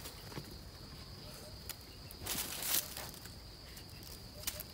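Steady high-pitched drone of insects, with a few short rustles and scrapes and a longer rustle about two and a half seconds in.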